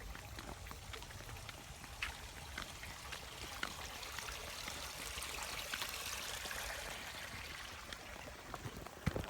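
Running water, a steady rush that swells for a few seconds in the middle, with scattered faint taps.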